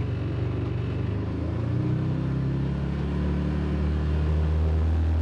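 Can-Am Defender HD10 XMR side-by-side's V-twin engine pulling away in four-wheel drive with the rear differential locked, heard from inside the cab; its note rises about two seconds in, then holds steady.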